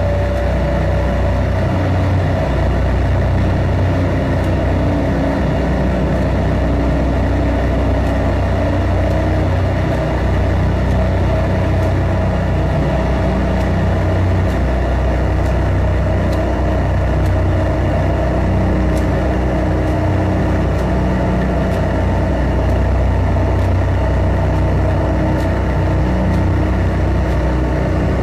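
Live drone-noise music from electric guitar and electronics: a loud, unbroken low drone with held tones layered above it, and a faint tone sliding slowly upward a few seconds in.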